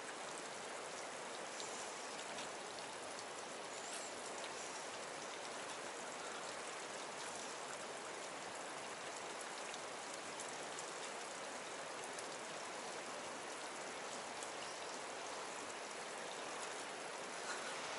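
Steady, even hiss of flowing stream water, with a small cascade upstream, and a few faint ticks.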